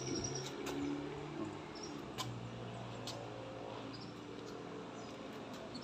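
Quiet outdoor ambience with short high-pitched chirps near the start and again near the end, a few faint clicks, and a low steady hum underneath.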